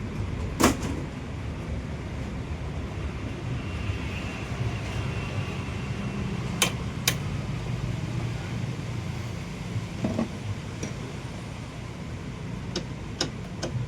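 Maruti Alto 800's three-cylinder petrol engine running at a steady idle, with a few sharp clicks or knocks scattered over it.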